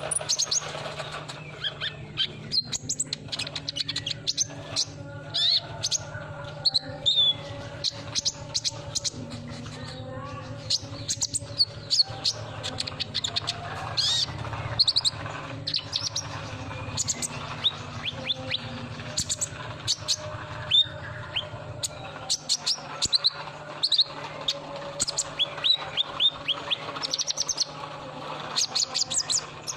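Sunbird ('kolibri ninja') song: a rapid, continuous run of high-pitched chirps and twitters, many of them short, quick falling notes.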